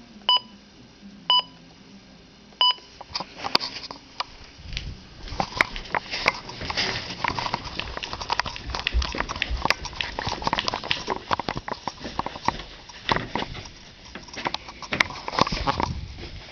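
Three short electronic beeps about a second apart from a Midland WR-300 weather radio, then a long run of irregular rustling and clicking.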